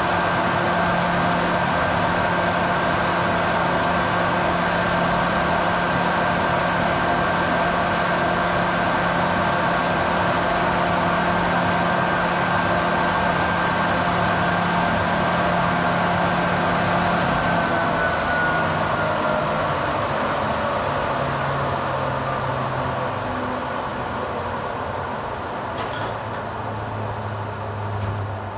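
A 13 kW three-phase induction motor runs steadily with its hum and cooling-fan whine. About 17 seconds in, the power is cut and the motor coasts down, its whine falling in pitch and slowly fading, with a couple of faint clicks near the end.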